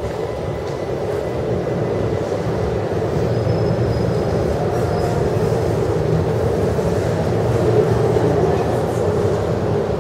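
Vienna U-Bahn train rumbling through the underground station, a steady rumble that slowly grows louder until near the end.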